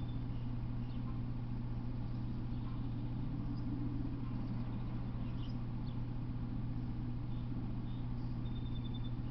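A steady low hum, with a few faint, short high chirps from birds scattered through it.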